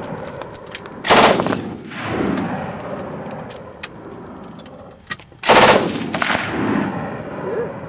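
MG42 machine gun in 8mm Mauser firing two short full-auto bursts about four seconds apart, each trailing off in a rolling echo.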